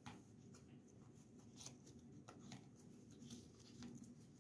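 Near silence with faint, irregular rustles and soft ticks of tarot cards being handled and slid against one another.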